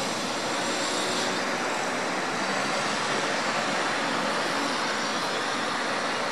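Steady background noise of distant city traffic, even and unbroken.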